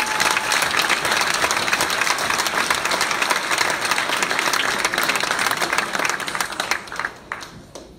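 Large audience applauding: dense clapping that thins out near the end to a few last separate claps and dies away.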